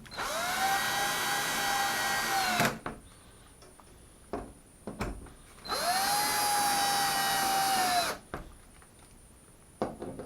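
Drill-driver driving track-shelf screws into drywall anchors, clutch set low, in two runs of about two and a half seconds each: a steady motor whine that spins up, holds, and winds down. The second screw's anchor is trying to spin in the wall.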